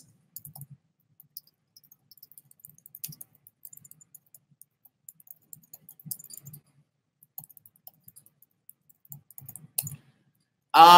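Soft, irregular clicks and taps of typing and clicking on a computer keyboard and mouse, scattered and faint.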